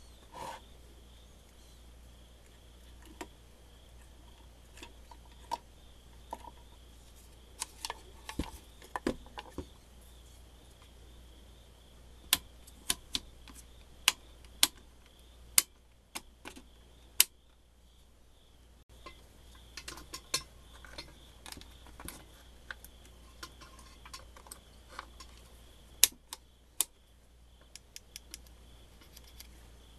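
Small metal parts and wires being handled on a workbench: scattered, sharp clicks and light metallic clinks at irregular intervals over a faint steady hum.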